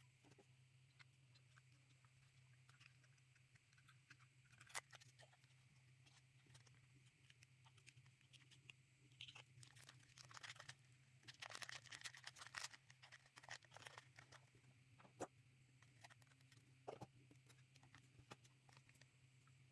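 Faint scattered clicks and crinkles of small plastic toy pieces and packaging being handled, busiest from about ten to fourteen seconds in, over a steady low hum.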